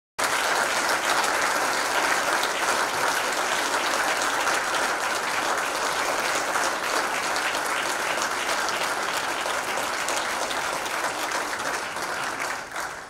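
Concert hall audience applauding steadily, the applause dying away near the end.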